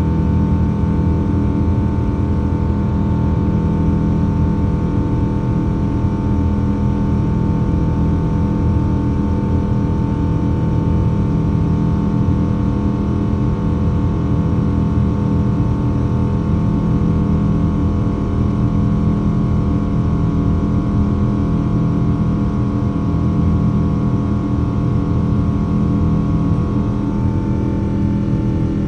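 Steady cabin noise inside a Boeing 777-200ER in flight: a constant drone of jet engines and airflow with several fixed humming tones, unchanging throughout.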